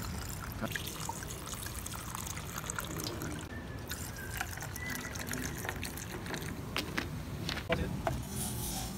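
Drinks being poured over crushed ice: liquid trickling and splashing into glasses from bottles, including cola from a plastic bottle, with a few light knocks.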